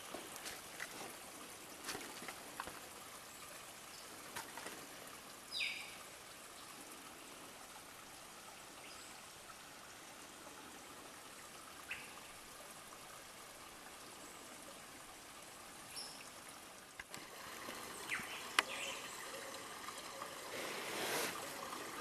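Faint, steady trickling of water from a small forest stream, with a few scattered clicks and one short falling chirp about five seconds in; the trickle grows louder over the last few seconds.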